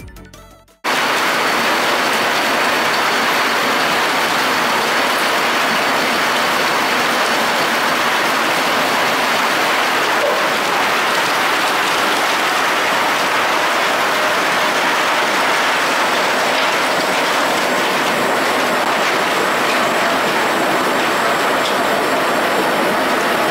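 Belt conveyor carrying wood chips, running steadily, with the chips clattering and pattering as they tumble along and spill off the belt; the steady mechanical rush starts abruptly about a second in.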